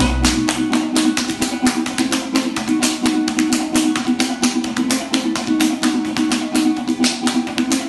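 Lively dance music: plucked strings over a fast, even run of sharp percussive strokes, about seven a second.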